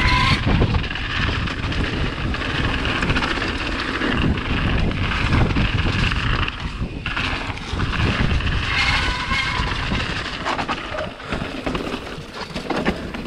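Mountain bike riding fast down a rough trail: wind rushing over the microphone, with tyres rolling over dirt and rock and the bike rattling.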